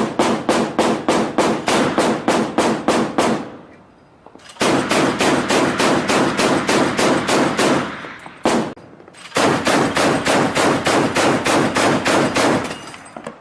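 Mk 38 25 mm machine gun firing automatic bursts, about four rounds a second. There are three bursts of roughly three seconds each, with a single shot between the second and third.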